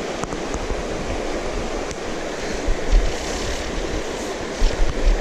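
River current rushing steadily over a riverbed, with a few low gusts of wind buffeting the microphone around the middle and near the end.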